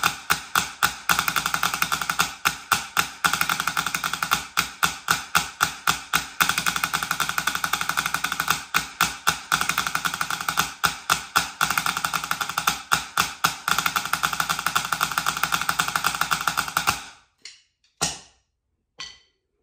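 Drumsticks on a drum practice pad playing fast rolls and rudiments: a dense, rapid stream of taps with regular louder accents. It stops about seventeen seconds in, and a few single taps follow.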